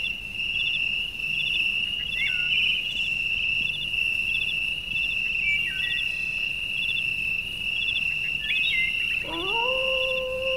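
Outdoor wildlife ambience: a steady high insect drone with repeated short chirps and a few falling bird notes. About nine seconds in, a long howl rises and then holds steady.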